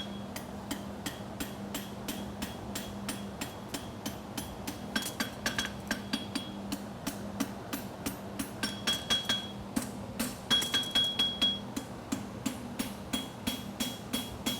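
Farrier's hammer striking a hot steel horseshoe on an anvil in a steady rhythm of about three blows a second, some blows ringing, with a run of harder blows about ten seconds in. This is the heel of the shoe being forged and cleaned up.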